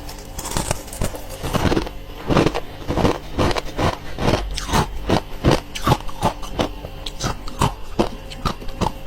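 A person biting and chewing soft freezer frost close to the microphone: a steady run of sharp, crisp crunches, about two a second.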